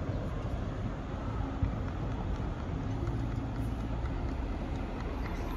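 Siemens Combino low-floor tram approaching slowly on the track: a steady low rumble with a faint steady hum.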